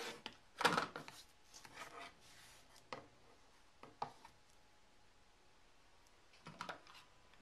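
Rotary cutter blade slicing through the layers of a quilted block along a ruler edge, a short rasping cut about half a second in. After it come smaller scrapes and light clicks as the ruler and fabric are shifted and set down.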